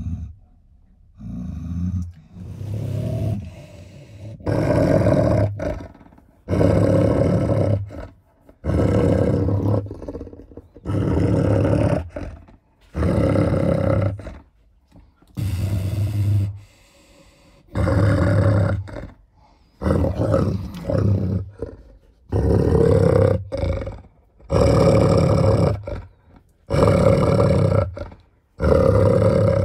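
German Shepherd growling deeply over a raw bone, about fifteen growls of a second or so each, one every couple of seconds with a pause for breath between. The growls are food guarding, a warning against the hand at her head.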